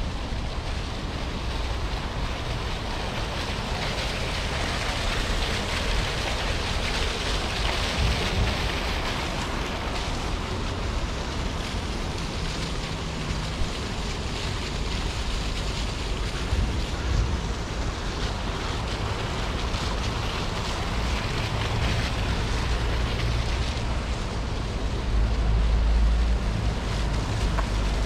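City street ambience: a steady wash of traffic noise with wind buffeting the microphone, and a deeper rumble swelling near the end.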